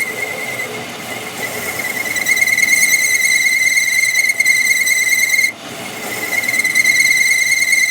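A steady high-pitched metallic squeal with a fast flutter in it, breaking off briefly about five and a half seconds in.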